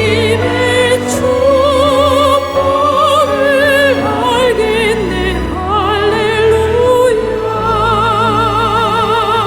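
A soprano voice singing a slow Christian worship song in a classical, operatic style, holding long notes with a wide vibrato over sustained accompaniment with a steady low bass.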